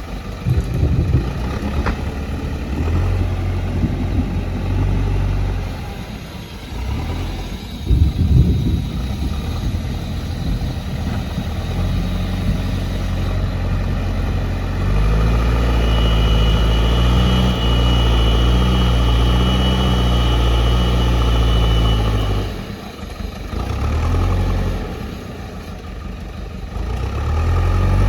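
JCB loader's diesel engine running and working, its note rising and falling. Through the middle it runs steady and heavier, with a thin high whine over it. Near the end it drops off twice, briefly.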